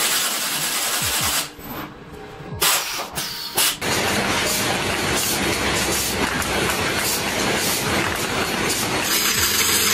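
A short hiss at the start, then from about four seconds in, a bamboo-processing machine running with a steady rushing, rattling noise as bamboo is fed through it.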